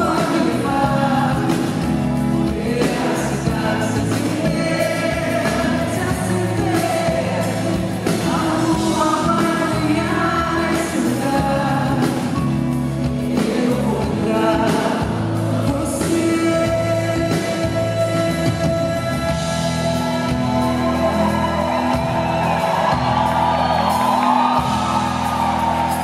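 A woman singing a Brazilian pop song live, accompanied by a nylon-string acoustic guitar, with concert-hall reverberation.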